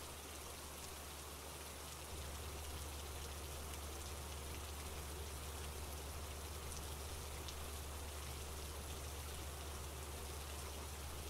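Steady, faint rainfall, with scattered small drops ticking, over a low steady hum that grows slightly louder about two seconds in.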